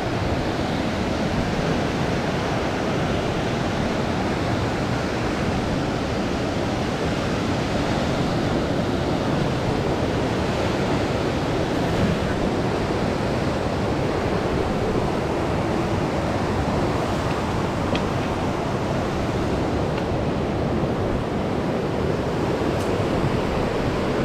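Whitewater river rapids rushing: a loud, steady roar of moving water.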